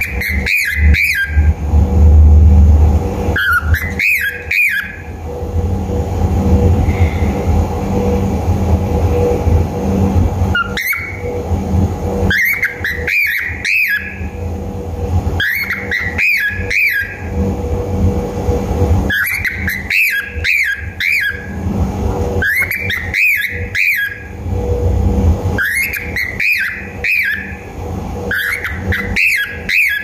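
Cockatiel calling in short bursts of several rising-and-falling whistled notes, a burst every few seconds, over a steady low rumble.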